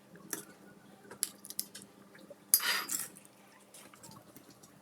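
A spoon clinking and scraping against the bowl and ramekins as thick pudding batter is spooned in. There are a few light taps, then one louder scrape about two and a half seconds in.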